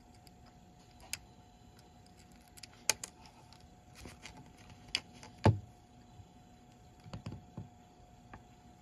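Scattered small clicks and taps of a small screwdriver and the plastic, rubber-gripped housing of an infrared thermometer being handled on a tabletop while a tight screw is worked at. One louder knock about halfway through, and a short run of taps near the end.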